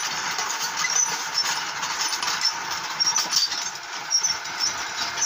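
The motor-driven stirring rig of a puffed-rice mill running over its clay ovens, a steady mechanical rush, with faint high chirps now and then.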